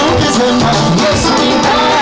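Amplified music with singing through a PA loudspeaker: voices over a beat and a bass line.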